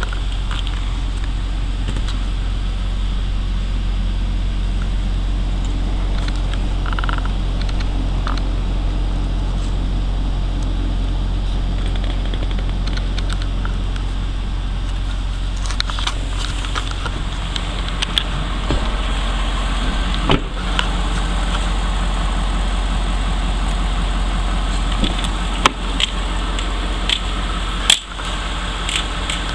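Ford 6.7 L Power Stroke V8 turbodiesel idling steadily, heard from inside the truck's cab, with the hiss of the climate-control fan. A few short knocks come in the second half.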